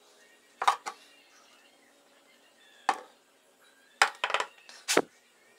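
Light clicks and taps of a plastic glue bottle and a small wire-spoked model wheel being handled on a tabletop: a pair of clicks under a second in, one near three seconds, then a quick run of clicks between four and five seconds.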